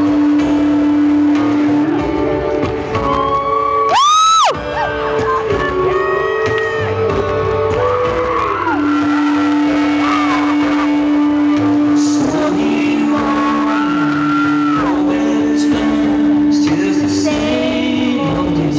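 Live rock-country band playing in a large arena: electric guitars over a steady held note, with singing coming in near the end. About four seconds in, a short, very loud rising whoop cuts through.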